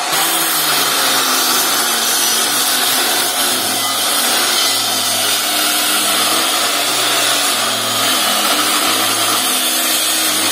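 Handheld power tool running steadily against a brick-and-plaster wall, throwing up masonry dust.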